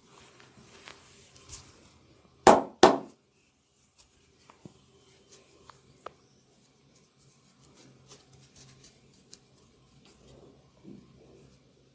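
Massage sounds: two loud, sharp smacks in quick succession, with soft rubbing and a few small clicks around them.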